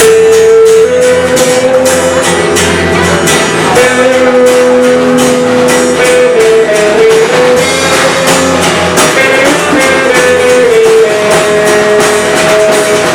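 Live band music in an instrumental passage: a lead instrument plays long held melody notes that step up and down over a steady drum beat.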